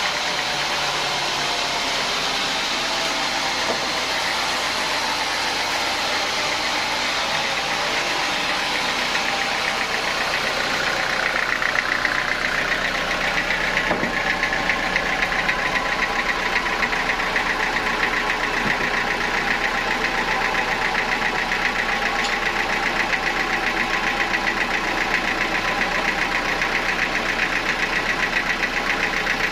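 Sawmill saw running steadily with its machinery drive, getting louder and harsher about a third of the way through, as when the blade is cutting into a teak log.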